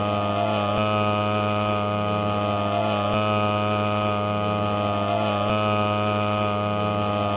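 A steady, droning hum with many overtones. It repeats as a loop about every two and a half seconds, with a faint click at each repeat.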